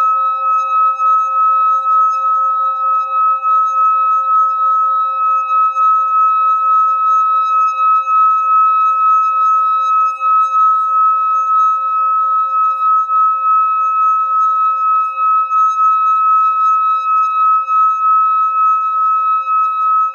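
Metal singing bowl rubbed around its rim with a wooden mallet, singing one sustained ringing tone with several higher overtones, its loudness wavering quickly and evenly.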